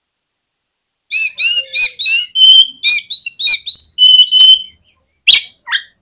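Oriental magpie-robin (kacer) singing: a fast run of varied whistled notes, some held, beginning about a second in, followed by two short harsh notes near the end.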